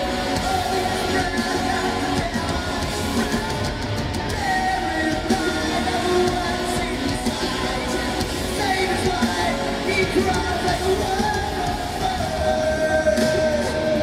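Live rock band playing loud, with the lead singer singing into a microphone over electric guitar, recorded from the audience in an arena.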